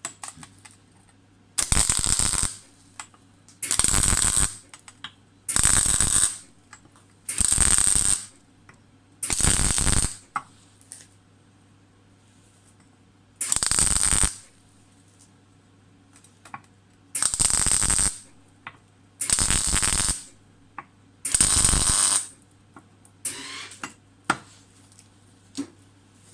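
Nine short, loud hissing or scraping strokes of hand work on an old lamp, each just under a second, mostly about two seconds apart with a longer pause near the middle. Small clicks and taps come between the strokes over a steady low hum.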